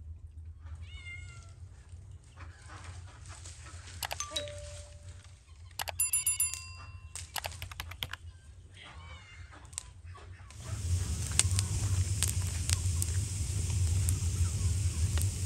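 Wood fire of branches crackling in a tandoor's firebox, with sharp pops, starting about two-thirds of the way in and the loudest sound here. Before it come a few short bird calls and a brief ringing tone.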